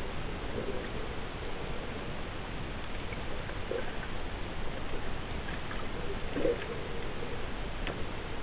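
Underwater sound picked up by a camera recording below the surface: a steady hiss with scattered faint ticks and clicks, and a few short low blips.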